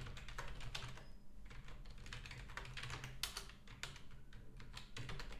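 Typing on a computer keyboard: short, irregularly spaced keystrokes, over a low steady hum.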